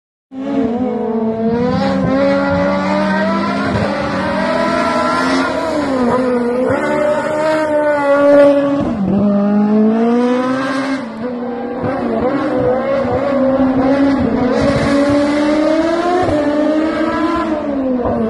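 Toyota Starlet race car's naturally aspirated 16-valve 4A-GE four-cylinder engine at full throttle. The pitch climbs and drops sharply at each gear change, several times over.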